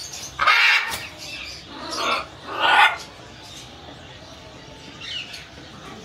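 Parrots squawking: three loud squawks in the first three seconds, the first the longest, then only faint bird calls.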